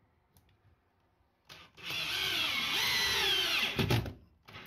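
Makita cordless drill driver driving a long screw into a timber stud. It starts about a second and a half in and runs for about two and a half seconds with a wavering whine, then stops suddenly. A few light clicks come before it and some knocks after.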